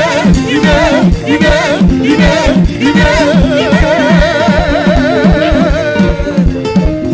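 Loud music with a fast, steady beat and a singer's wavering, ornamented vocal line; from about three seconds in the voice holds one long wavering note.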